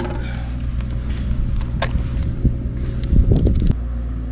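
A motor vehicle's engine running steadily with a low hum, with a few light knocks over it. About three-quarters of the way through, part of the sound cuts off and the low engine hum carries on.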